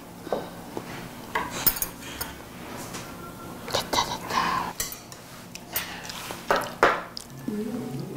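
Cutlery and dishes clinking and tapping on a table during a meal, several separate sharp clinks, some with a brief ring.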